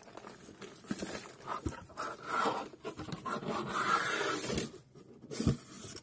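Cardboard boxes being handled and shifted by hand: scraping and rubbing, loudest in the middle, with a few light knocks.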